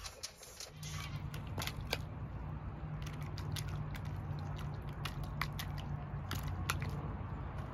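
A puppy pawing and lapping at water in a plastic bowl, with a run of small splashes, slurps and clicks. A steady low hum sits underneath, starting about a second in.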